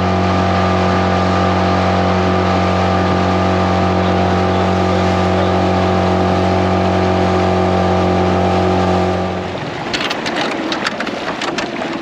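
A boat's outboard motor running steadily at speed, which stops abruptly about three-quarters of the way through. After that come wind on the microphone and water, with scattered clicks.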